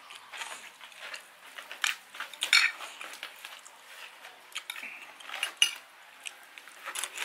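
Metal spoon and fork scraping and clinking against a plate while scooping up fried rice: irregular clicks and scrapes, the loudest about two and a half seconds in.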